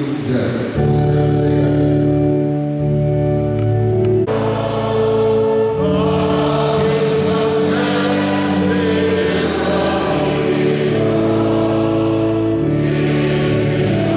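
Church choir singing a Christmas hymn over long held chords. The chord changes about four seconds in, and higher voices come in more strongly from about six seconds.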